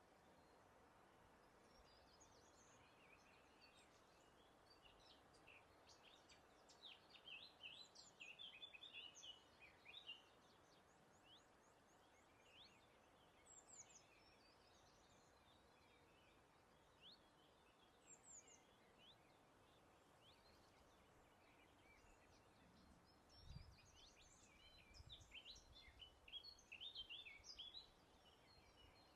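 Songbirds chirping and trilling faintly over a soft, steady background hiss. The chirping comes in two busier bursts, one about a quarter of the way in and another near the end, with a soft low thump just before the second.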